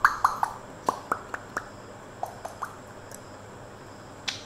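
African grey parrot making a string of quick popping clicks. There are about seven in the first second and a half and three more a little after two seconds, then one sharper click near the end.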